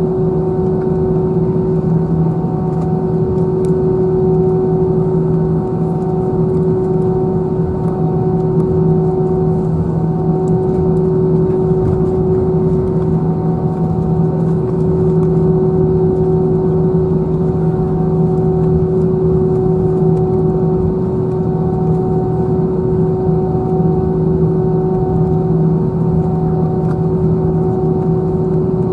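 Steady drone of an Airbus A321's CFM56 jet engines heard from inside the passenger cabin, with a few constant humming tones that hold their pitch.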